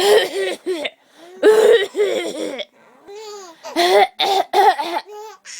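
A woman coughs several times and a baby laughs in response, breaking into high-pitched bursts of laughter after the coughs.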